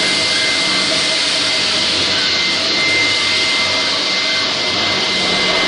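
LINAX K-30ENV floor grinder grinding a concrete floor, with its hose-connected dust extractor sucking up the dust: a loud, steady whirring hiss with a steady high whistle in it.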